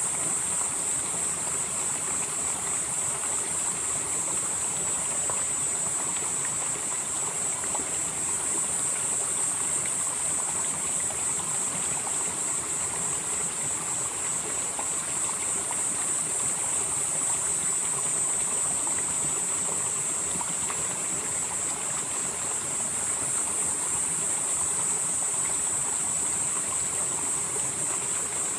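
A mountain stream flowing steadily over rocks in a valley, with a high, shrill hiss above it that swells and fades in slow waves every several seconds.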